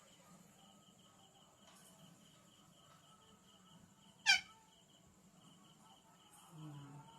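A parrot gives one short, sharp call about four seconds in, over a faint, steady, rapidly pulsing chirring in the background.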